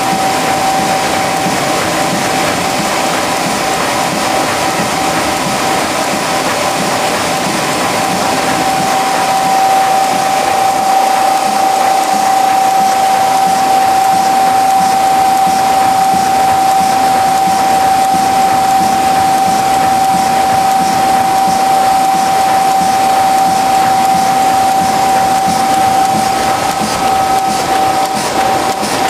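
Tymi Ustar-102 UV spot coating machine running, a steady whine over a loud, even rush of air and machinery. It grows a little louder about a third of the way in.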